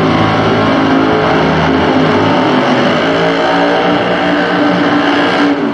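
Pro Nitrous drag car's big-block V8 revving hard through a burnout, with its rear tyres spinning. The pitch steps up and down a few times, and the sound drops off suddenly near the end.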